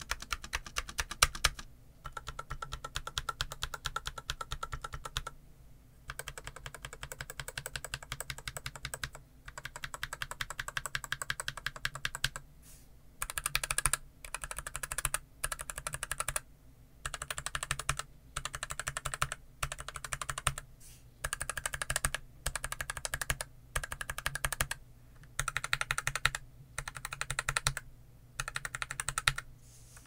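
Stock James Donkey S2 low-profile mechanical keyboard, with Gateron Brown low-profile 2.0 tactile switches and PBT low-profile keycaps, being typed on quickly: a dense patter of keystrokes. For the first dozen seconds the typing runs almost without a break; after that it comes in bursts of about a second, with short pauses between them.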